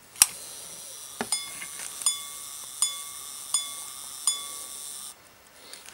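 Quarter-repeater pocket watch striking its hour gong five times, evenly spaced, each strike ringing. A click as the repeater slide is released starts it, and a steady whir of the repeater train runs under the strikes until it stops near the end. It strikes only the hours and no quarters: the repeater is out of adjustment.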